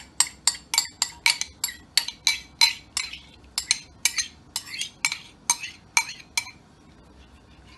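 A spoon scraping sauce out of a ceramic bowl in quick strokes, clinking sharply against the bowl about four or five times a second. The strokes slow and stop about six and a half seconds in.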